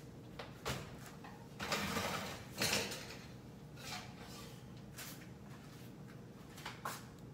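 A metal oven rack and a glass baking dish clattering and scraping as the dish is pulled out of a wall oven: a few clicks, a scrape about one and a half seconds in, a louder clunk near three seconds, then lighter knocks.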